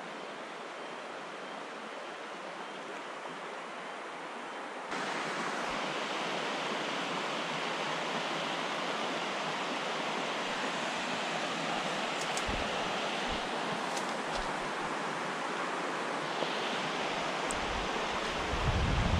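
Rushing river water, a steady noise that jumps louder about five seconds in. Low rumbles on the microphone near the end.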